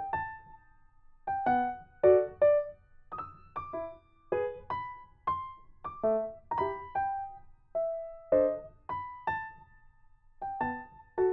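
Background music: a slow, gentle piano tune of single struck notes, about two a second.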